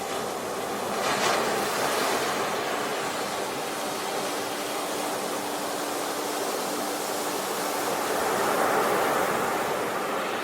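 Ocean waves washing onto the shore, a steady surf noise that swells with a wave about a second in and another near the end.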